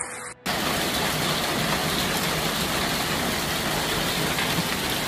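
Heavy hailstorm downpour pelting a street, a dense, steady hiss that starts abruptly about half a second in.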